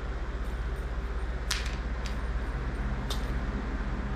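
Steady low mechanical hum, like an air conditioner or distant traffic, with three short light clicks or tinkles about one and a half, two and three seconds in, plausibly from the cat's feather wand toy and its small bell being moved.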